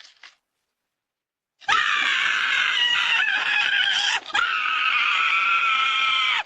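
Near silence, then about 1.7 s in a long, high-pitched, wavering scream that breaks off briefly and starts again for a second long scream.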